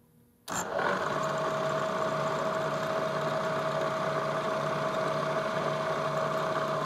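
A drill press motor switches on about half a second in and then runs steadily with an even hum, while a countersink bit is fed down into an aluminum plate.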